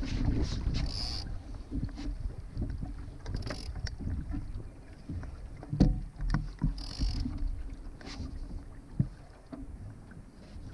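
Water washing along a Laser dinghy's hull under sail in light wind, with wind rumbling on the microphone. A few brief splashes and two sharp knocks from the boat, the clearer ones about six and nine seconds in.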